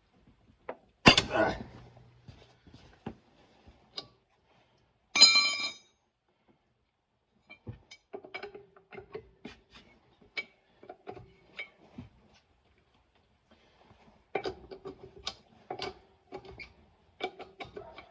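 Lug nuts being broken loose with a tire iron: a loud sharp knock about a second in, a ringing metallic clink about five seconds in, then runs of light clicks and taps as the iron is fitted to and worked on the nuts.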